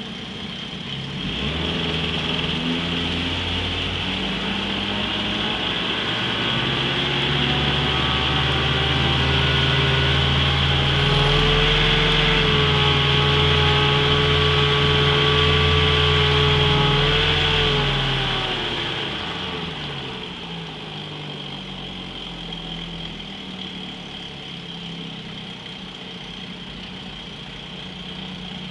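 Johnson 7.5 hp two-stroke outboard motor running with its lower unit in a test tank: it is throttled up from a low run over several seconds, held at a higher, steady speed, then eased back down to idle about two-thirds of the way through.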